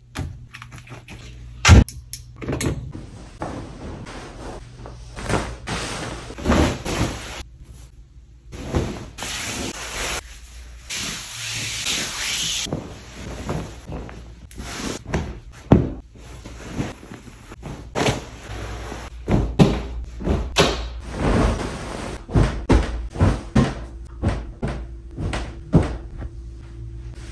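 Bed sheets rustling and swishing as they are handled, shaken out and spread over a bed, with a longer swishing stretch about a third of the way in. Many soft thumps run through it as bedding and pillows are dropped and patted into place.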